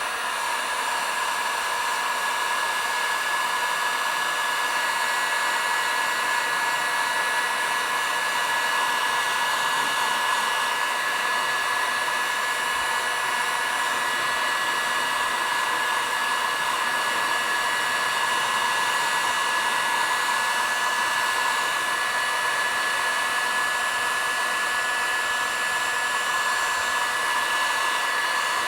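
Electric heat gun running steadily, a fan hiss with a high whine, as it shrinks heat-shrink tubing over a crimped wire splice.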